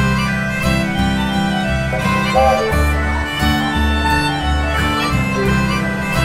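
Upbeat country-folk background music: a reedy lead melody over a bouncing bass line.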